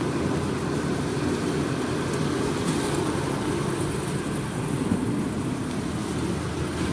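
Slitter scorer machine for corrugated cardboard running, a steady low mechanical drone with no break or change.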